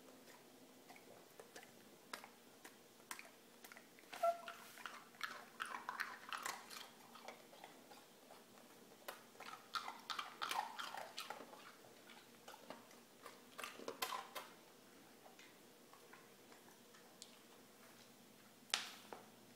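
Cocker spaniel crunching an ice cube, in three bouts of quick, crisp crunches. There is a single sharp click near the end.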